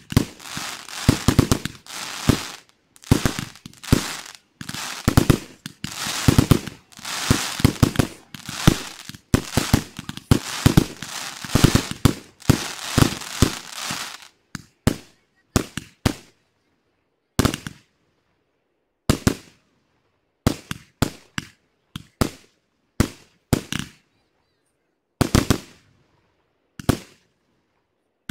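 Aerial fireworks shells bursting in rapid, overlapping succession with crackling. About halfway through they thin out to separate bangs a second or two apart.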